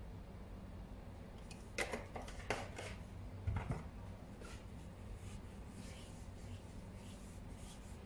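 A few light knocks and clicks, the loudest a dull thump, from a plastic oil bottle being handled and set down on a wooden board. They come between about two and four seconds in, over a low steady hum.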